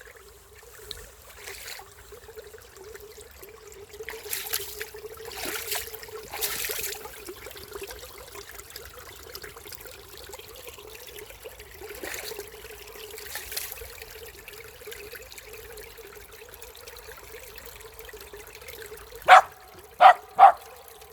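Water trickling and splashing, with louder splashy spells now and then. Near the end come three short, loud, sharp sounds in quick succession.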